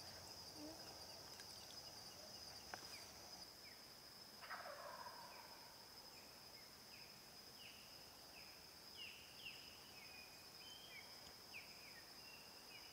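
Faint dusk ambience: a steady high-pitched insect trill, and from about four seconds in a bird calling a series of short down-slurred notes, about two a second.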